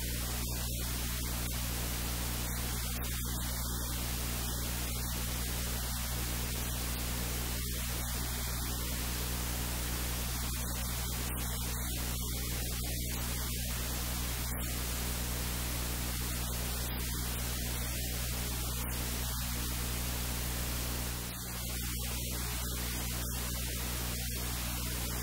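Steady electrical hum with a constant static hiss over it; no other distinct sound stands out.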